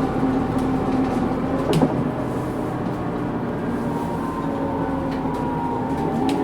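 Scania K230UB bus in motion, its rear axle differential whining over the running of the Scania DC9 engine and ZF Ecomat automatic gearbox. The whine's pitch sinks slowly through the second half.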